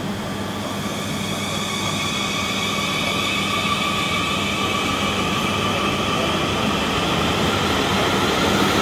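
South Western Railway electric multiple unit moving past: its traction motors whine in several steady tones over the rumble of wheels on rail, growing gradually louder.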